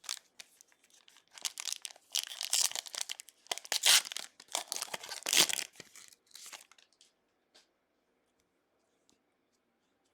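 A 2021 Panini Mosaic football card pack wrapper being torn open and crinkled: a run of rustling tears lasting about five seconds, loudest in the middle, then a few faint clicks.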